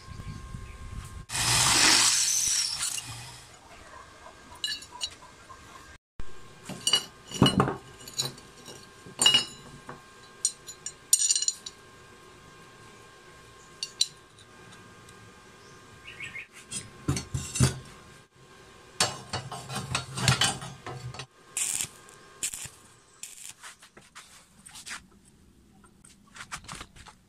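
Steel pillow-block bearings and a rusty pulley clinking and knocking as they are handled and fitted by hand, in scattered sharp taps. A loud rushing noise lasts about two seconds near the start.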